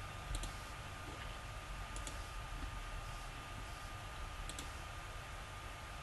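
A few sharp computer mouse clicks, with a close pair about four and a half seconds in, over a faint steady hum and a thin high whine.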